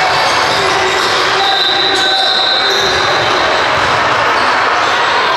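Basketball game sounds in a large, echoing gym: a ball bouncing on the hardwood court over a steady wash of players' and spectators' voices.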